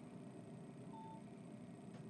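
Faint, steady low rumble with one short, faint beep about a second in.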